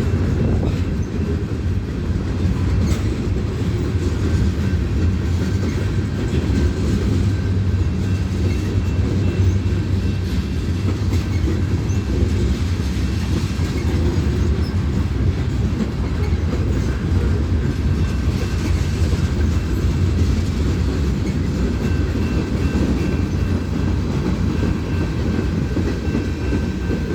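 Freight train's hopper cars rolling steadily past at close range: a continuous low rumble of steel wheels on rail, with faint steady high tones over it.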